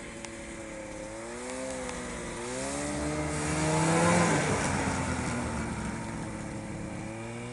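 Snowmobile engine running as it rides past, its pitch wavering with the throttle. It is loudest about four seconds in as it goes by, then drops in pitch and fades as it moves away.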